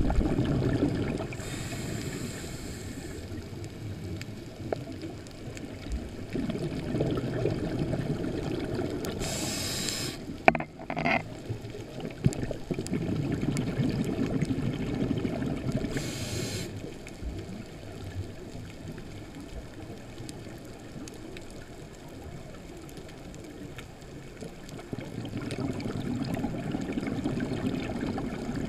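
Scuba diver breathing through a regulator, heard underwater through a camera housing: three short hissing inhalations about seven seconds apart, with longer low bubbling exhalations between them.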